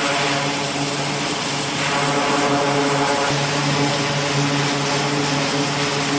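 E-2C Hawkeye's twin turboprop engines running at a steady pitch with the propellers turning while the plane stands on the flight deck: a continuous propeller drone with a low hum and a hiss.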